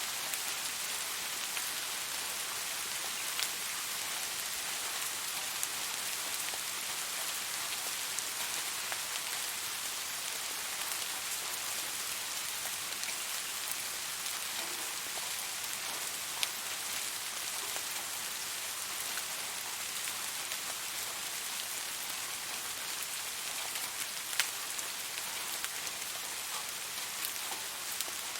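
Steady rain falling, an even hiss with now and then a single louder drop tick.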